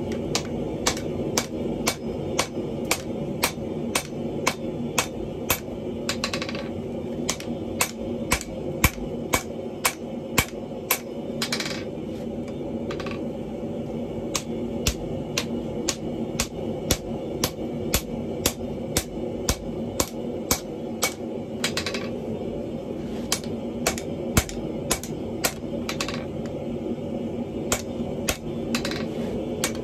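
Hand hammer striking red-hot wrought iron on a steel anvil, steady blows at about two a second, with a steady low hum underneath.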